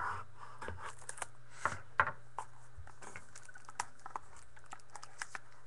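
A knife slitting the plastic wrap of a trading-card hobby box, then the cardboard box being opened by hand: scattered small clicks, scratches and crinkles, with a couple of sharper clicks about two seconds in.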